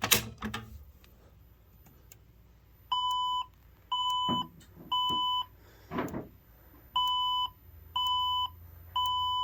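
A Fire-Lite BG-12 pull station is pulled with a sharp clack. About three seconds later the voice evacuation alert tone starts: a steady beep in the temporal-three evacuation pattern, three half-second beeps, a pause, then three more.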